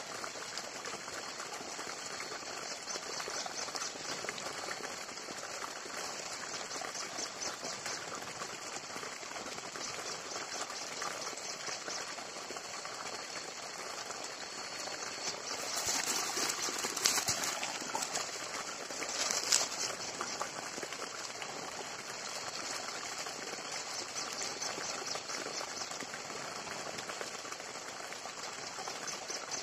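Forest ambience of a steady, high-pitched insect chorus with fine rapid pulsing, over a small wood fire crackling. About halfway through, a few louder sharp noises stand out for several seconds.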